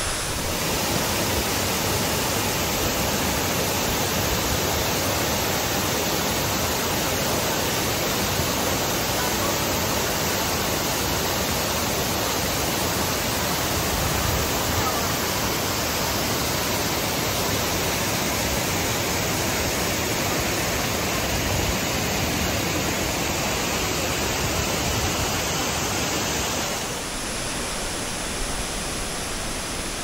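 Steady rush of a waterfall pouring over rocks. It turns slightly quieter near the end.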